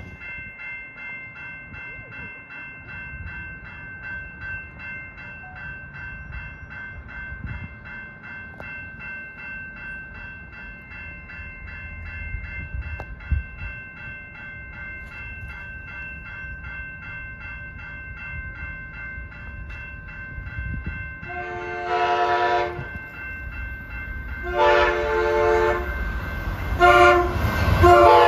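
Railroad crossing bell ringing steadily. About 21 seconds in, an approaching Amtrak Pacific Surfliner train sounds its horn in the grade-crossing pattern of long, long, short, long. The last blast drops in pitch as the train reaches the crossing, over a rising rumble of the train.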